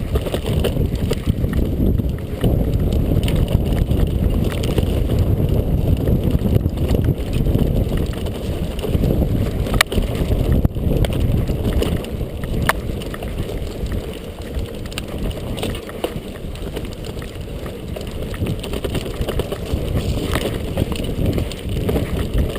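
Rushing wind noise on the microphone with mountain bike tyres rolling over a dirt trail, plus a couple of sharp clicks or knocks from the bike about ten and thirteen seconds in.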